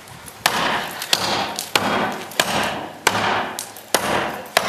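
Heavy competition cutting knife chopping hard and fast, about seven sharp strokes roughly two-thirds of a second apart, each followed by a short rasping tail.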